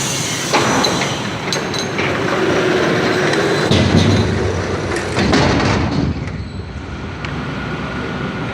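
Wood-Mizer sawmill running: a steady mechanical din broken by several sharp knocks and clanks. It eases off a little about six seconds in.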